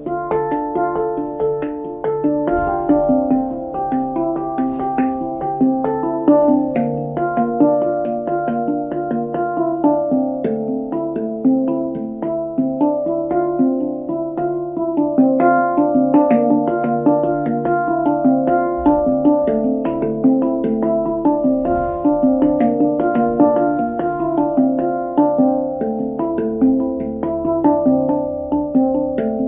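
Nine-note nitride steel handpan in D Kurd played with the fingertips: a continuous flow of quick struck notes, several a second, each ringing on under the next.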